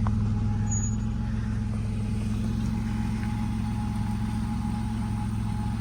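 Vehicle engine running steadily, a low even hum.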